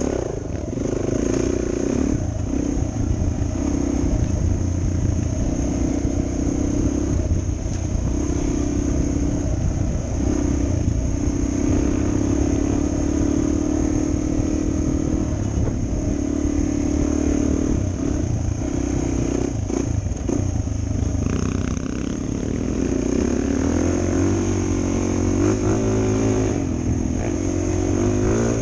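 Suzuki DR 400 dual-sport motorcycle's single-cylinder four-stroke engine running under load, its pitch rising and falling with throttle and gear changes. Short knocks and rattles are mixed in. Near the end the engine revs climb unevenly.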